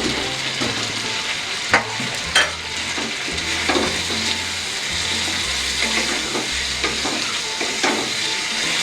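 Spice paste sizzling in a frying pan while fried eggs and potato pieces are stirred through it with a spatula, with a few sharp knocks of the spatula against the pan, two of them close together about two seconds in.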